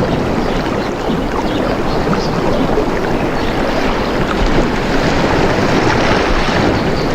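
Steady rush of moving water, with faint small splashes flecking through it.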